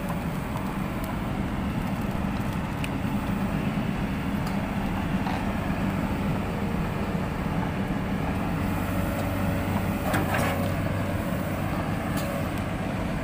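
Excavator's diesel engine idling steadily as the power source for jump-starting a crane's weak batteries, with a brief knock about ten seconds in.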